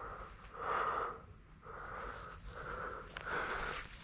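Rhythmic panting breaths close to the microphone, about one and a half a second.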